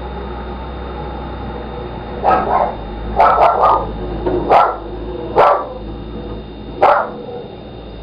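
A dog barking: about eight sharp barks, some in quick runs of two or three, spread over a few seconds.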